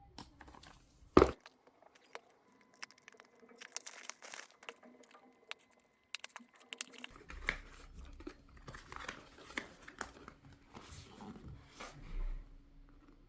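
Speaker packaging being unboxed by hand: a sharp knock about a second in, then irregular crinkling, rustling and clicking of plastic wrap and cardboard being handled.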